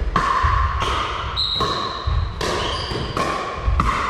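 Pickleball paddles striking the hollow plastic ball in a fast rally at the net: about five sharp pops, each ringing briefly in the hall, with sneakers squeaking on the wooden floor between hits.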